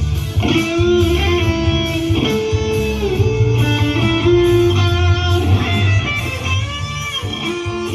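Electric guitar played through a stage PA, with held chords changing every second or so over a strong bass line.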